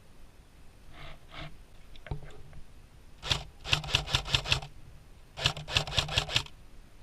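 Airsoft rifle firing two short bursts of rapid shots, about seven a second, with a few single shots before them.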